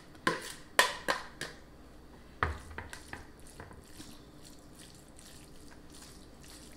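A serving spoon knocking and scraping against a mixing bowl and a casserole dish as sauced spaghetti is scraped out and spread. There are a few sharp clinks in the first second and a half and a duller knock about two and a half seconds in, then only faint soft sounds of spreading.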